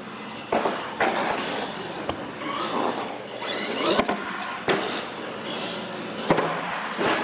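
RC monster truck driving on a concrete floor and over plywood ramps: its motor whines, rising and falling in pitch in the middle, and there are several sharp knocks and clatters as the truck hits and lands off the ramps, one of them as it climbs a ramp about four seconds in.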